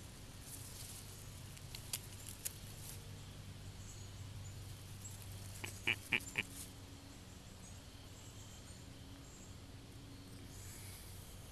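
Weed stems rustling and snapping in a quick cluster of sharp clicks about six seconds in, as a hand grabs and parts the plants, with a couple of fainter clicks earlier over a quiet background with a steady low hum.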